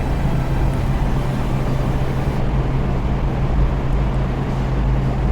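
A steady low mechanical drone: a constant low hum under an even, noisy rumble, unchanging throughout.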